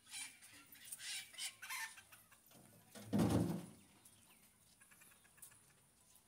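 Chickens clucking in short calls over the first two seconds. About three seconds in comes a single louder, lower sound lasting under a second.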